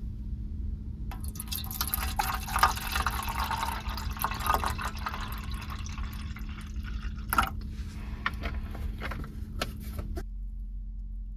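Tea being poured into a single-wall titanium mug (Snow Peak 450), the stream splashing as the mug fills, with a few sharp clinks along the way. The pour starts about a second in and stops about a second before the end.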